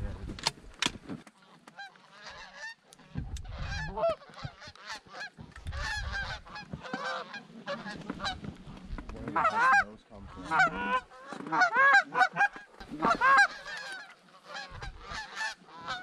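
Goose honks and clucks: many short calls overlapping in quick succession, thickest and loudest in the second half.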